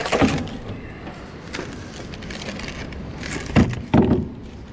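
Knocking and clatter of PVC rod holders and fishing rods being carried, with two heavy thumps near the end, over a steady background rush.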